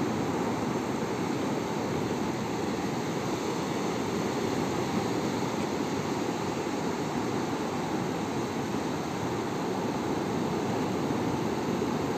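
Steady rushing of sea surf and wind, even throughout with no distinct events.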